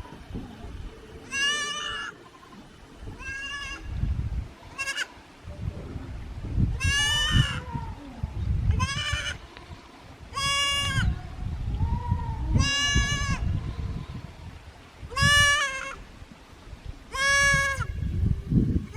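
A young kid goat bleating over and over as a lost kid calling for its herd: about nine high, wavering cries, each under a second long and spaced about two seconds apart.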